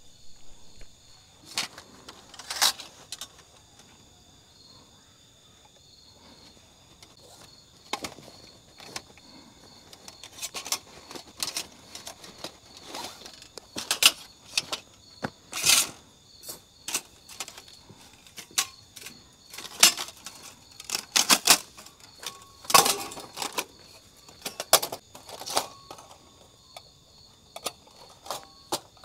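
Irregular clicks, knocks and light metallic clatter of camping gear being handled while a camp light is set up, growing busier about a third of the way in. A faint, steady high-pitched trill runs underneath.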